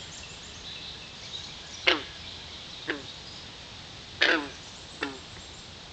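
Frog calls: four short, loud calls that each slide quickly downward in pitch, in two pairs of a longer call followed by a shorter one.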